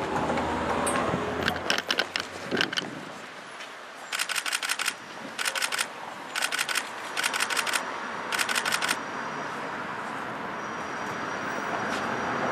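Camera shutters firing in rapid bursts of clicks, about a second of continuous shooting at a time, the bursts repeating several times in the middle. Under them is a steady hiss of street noise.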